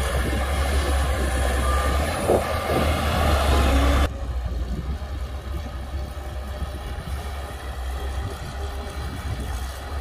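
Crawler bulldozer's diesel engine running steadily with a strong low rumble as it pushes soil. About four seconds in the sound drops suddenly to a fainter, more distant engine sound.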